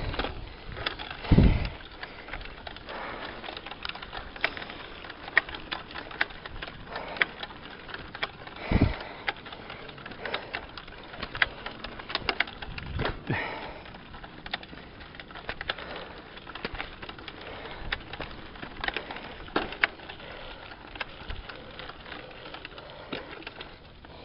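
Mountain bike and the camera fixed to it rattling over a rough dirt road: an irregular run of clicks and knocks, with a few dull thumps.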